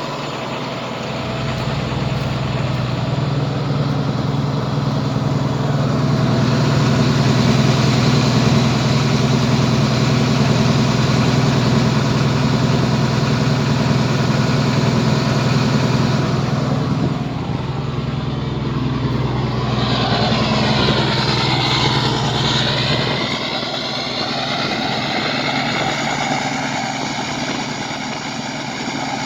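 International DT466E diesel engine of a school bus idling through a straight pipe with the muffler deleted, a steady low engine note. About twenty seconds in, a higher whirring with shifting pitch joins, and the deep engine note drops away a few seconds later.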